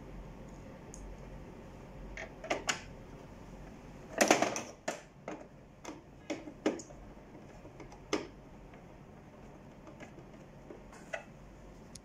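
Scattered clicks and knocks of plastic and metal parts as an Epson LQ-310 dot-matrix printer is handled and reassembled. The loudest cluster of knocks comes about four seconds in, and single clicks follow every second or two.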